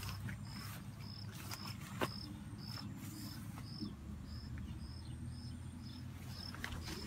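An insect chirping steadily outdoors: one short high note repeated evenly about twice a second. Under it are soft brushing and clicking handling sounds, with one sharper click about two seconds in.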